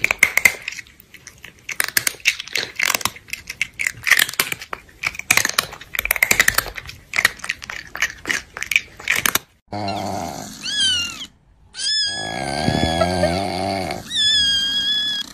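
Rapid, irregular clicking and crackling for about the first nine seconds, then a cat's meows and yowls in several calls, rising and falling in pitch, with a short break between them.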